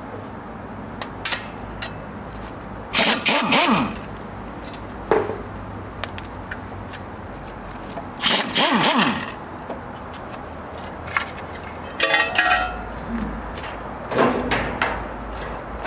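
Pneumatic impact wrench run on bolts in four short bursts of about a second each, its motor whirring up and down in pitch with each burst.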